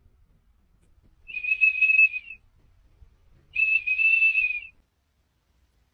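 Two long, steady, high whistled notes, each about a second long, the second following about two seconds after the first.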